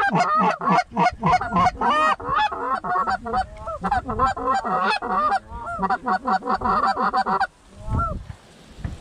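Canada goose honks and clucks, many at once in a rapid, overlapping chorus, breaking off abruptly about seven and a half seconds in, with a lone honk or two after.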